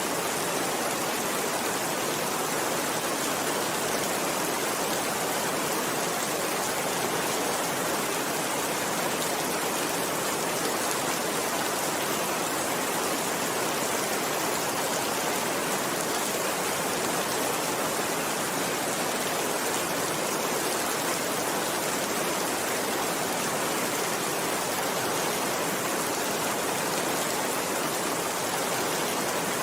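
Steady rain falling, an even hiss that does not let up or change.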